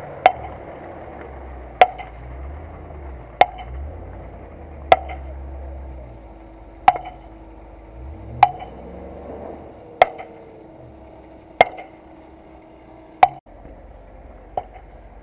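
A Land Rover Discovery's engine runs low and faint while towing a stuck off-roader out of mud, rising in a brief rev about eight seconds in. Over it, sharp metallic clinks ring out at an even pace, about every second and a half.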